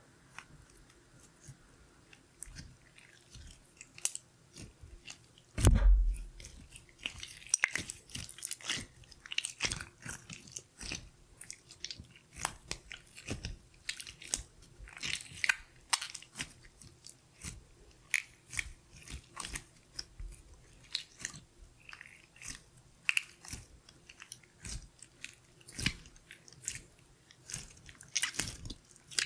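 Glitter slime being squeezed and worked by hand, giving irregular sharp pops and crackles. There is a louder thump about six seconds in.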